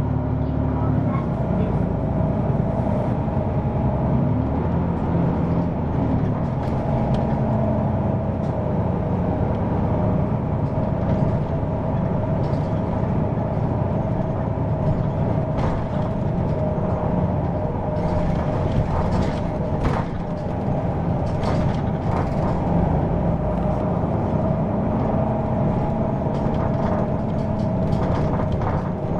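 Hino PDG-KV234N2 city bus driving, its engine and road noise running steadily with a constant whine. The engine note shifts in pitch near the start, and a few rattles and knocks come in the second half.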